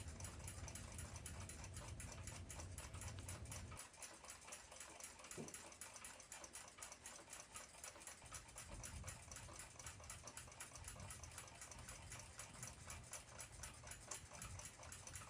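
Faint, rapid, even ticking of a clock, over a low hum that drops out about four seconds in and comes back about eight seconds in.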